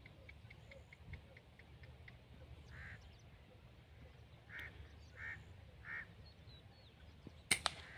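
Birds calling: a quick run of evenly spaced chips, about four a second, for the first two seconds, then four separate harsher calls a little under a second apart. Near the end comes a sharp crack with a second one right after it, the loudest sound here: the Gamo Shadow 1000 break-barrel spring-piston air rifle being fired.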